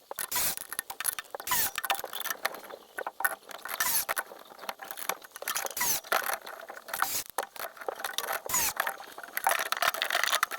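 Plumbing work by hand on water-heater piping: a dense, irregular run of clicks, scrapes and short squeaks with no let-up, the sound of tools and fittings being worked.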